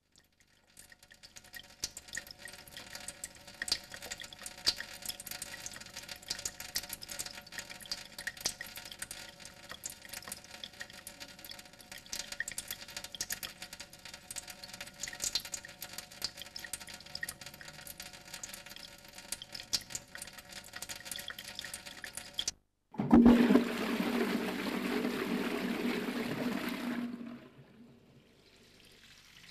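Water rushing through plumbing for about four seconds, loud and sudden, and then cut off. It is like a toilet flushing or a tap opened full. Before it comes a long stretch of faint crackling and small clicks over a steady hum.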